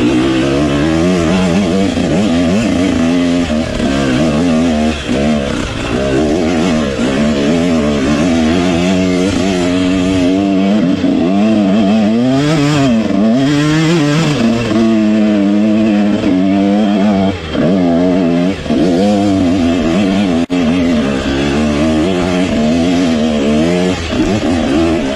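Dirt bike engine being ridden off-road, its pitch rising and falling constantly with the throttle and gear changes. About halfway through it revs high and drops back, and a few times in the second half it briefly falls off as the throttle is shut.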